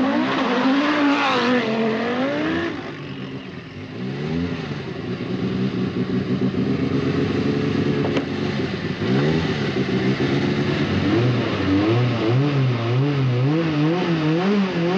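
Peugeot 205 Turbo 16's turbocharged four-cylinder engine revving at a rally stage start line, the revs swinging up and down over and over as the car waits to be sent off.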